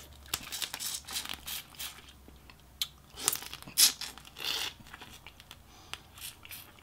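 Close-up eating sounds of a boiled crawfish in sauce being sucked and chewed: wet slurps, smacks and crackling shell in two runs of short clicks, the loudest about four seconds in.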